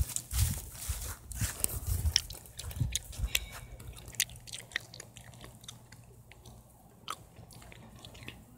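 Footsteps crunching on dry grass and fallen leaves, a dull thump and crackle with each step for about the first three seconds, then stopping; after that only faint scattered crackles.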